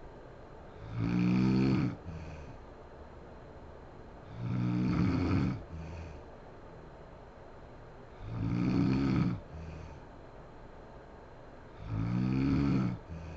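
A woman snoring in her sleep: four loud, low buzzing snores about every three and a half seconds, each lasting about a second and followed by a short, softer breath out.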